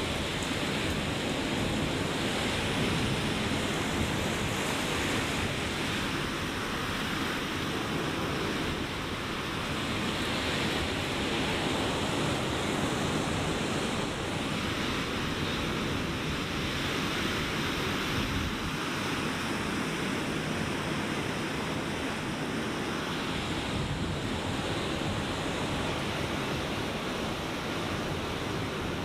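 Ocean surf breaking and washing onto the beach, a continuous rushing wash that swells and eases every few seconds.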